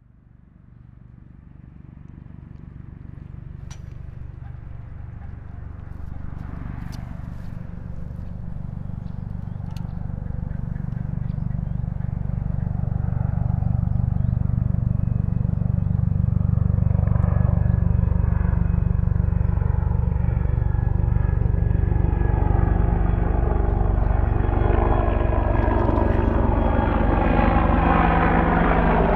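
AH-64 Apache military attack helicopter approaching from far off: a fast low beat of the rotor blades grows steadily from faint to loud over the first fifteen seconds or so and then holds. The whine of its twin turboshaft engines grows stronger near the end as it closes in.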